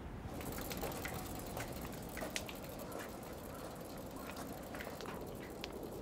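A bicycle being walked along a paved footbridge: light, irregular clicks and taps, a few a second, over a quiet outdoor background.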